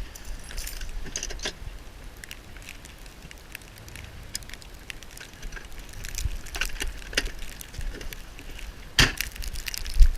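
Scattered crunches and clicks as a tow strap is unhooked and swapped in the snow, with one sharper click about nine seconds in.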